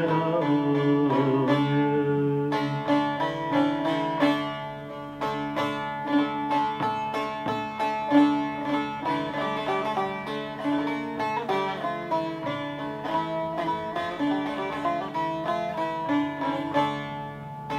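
A plucked string instrument plays a melodic instrumental interlude of quick, ringing notes, while the end of a sung line fades out in the first second or two.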